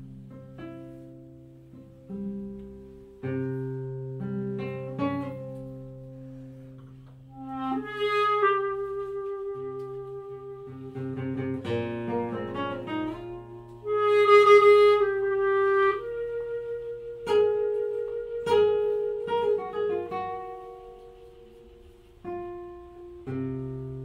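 Clarinet and classical guitar playing a nigun. The guitar plucks notes over held bass notes, and the clarinet comes in about eight seconds in with long held notes. The clarinet is loudest around halfway through.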